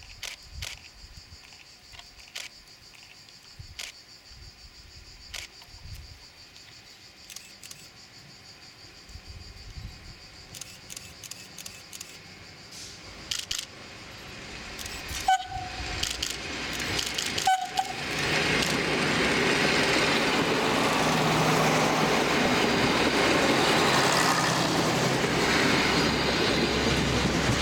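ALn 668 diesel railcar approaching and passing. For the first half only faint insect chirring and scattered clicks are heard. Then come two short horn toots about two seconds apart, and the railcar's engine and wheel noise swells to a loud, steady sound as it goes by close.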